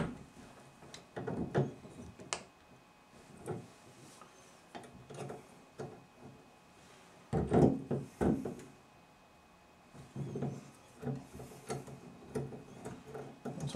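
Scattered light clicks and knocks as a Moen 1225 cartridge is worked by hand in the shower valve body, its stem pumped and turned to seat the retaining clip. There is a louder cluster of knocks about halfway through.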